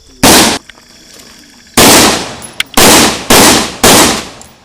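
Five rifle shots: one, then after about a second and a half a string of four, the last three about half a second apart.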